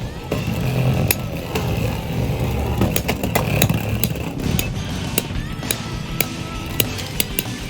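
Cobalt Dragoon and Wizard Rod Beyblades spinning in a plastic Beyblade X stadium, knocking against each other and the stadium: a steady whirr broken by many sharp clicks of contact.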